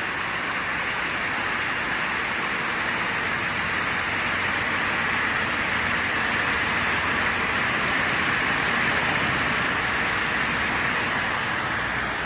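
Woodworking machinery running with a steady, even hiss, getting slightly louder toward the middle.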